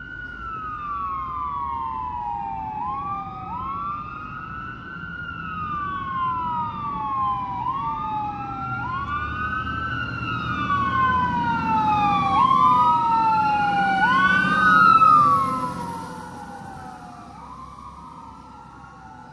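Fire engine sirens wailing as the truck approaches and passes: two overlapping wails, each rising and falling every two to three seconds. They grow louder to a peak about 15 seconds in, then fade as it moves away. Beneath them are the truck's engine rumble and tyre hiss on the wet road.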